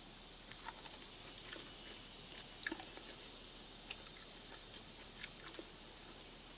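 Faint scattered crackles and clicks of the crisp fried breadcrumb crust as pieces of fried cheese are handled and pulled apart by hand, over a steady faint hiss.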